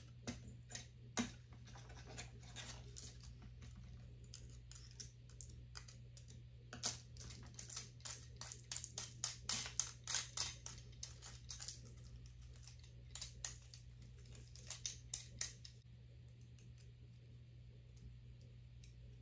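Paper crackling with small irregular clicks and ticks as die-cut paper butterflies are pushed and picked out of the cut cardstock sheet with a small hand tool. The clicks come thickest in the middle and thin out near the end, over a steady low hum.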